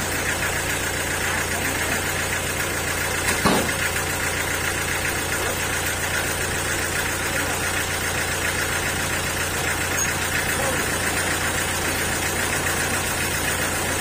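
Homemade sawmill running steadily as a large teak slab is pushed through the saw, a low even drone from the machine. One short knock about three and a half seconds in.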